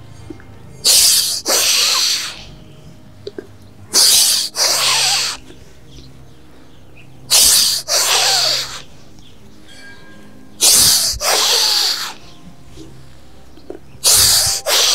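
A man breathing forcefully through his nose in time with a seated circling yoga movement, the mill-grinding pose (chakki asana): a sharp breath out and in together, about every three and a half seconds, five times.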